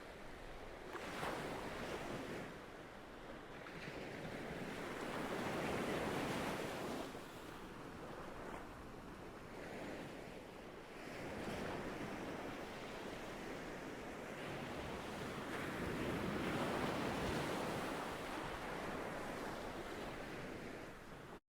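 Ocean waves washing ashore, the surf swelling and easing in slow surges every few seconds, then cutting off suddenly near the end.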